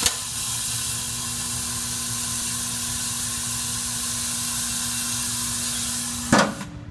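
Pneumatic pistol screwdriver running on compressed air: a steady loud hiss with a faint hum underneath, which stops about six seconds in with a short sharp burst.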